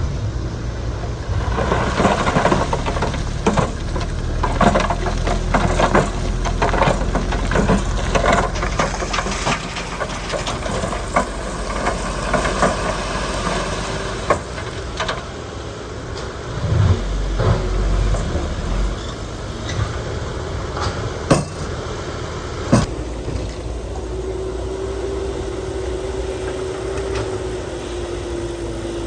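Heavy diesel construction machinery running, with many sharp clanks and knocks through the first half and two more sharp knocks later. A steady tone joins the engine near the end.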